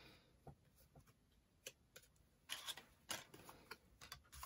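Faint, scattered light clicks and taps of a plastic frame punch board and card being handled on a cutting mat, with a small cluster of knocks about two and a half to three seconds in.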